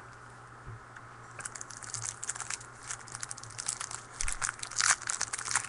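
Foil wrapper of a trading-card pack crinkling as it is handled and torn open: a rapid run of sharp crackles starting about a second and a half in and growing denser and louder toward the end, over a faint steady hum.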